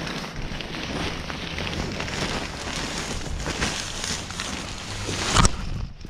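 Fabric motorcycle cover rustling and crinkling as it is pulled and handled over a dirt bike, with a sharp knock about five and a half seconds in.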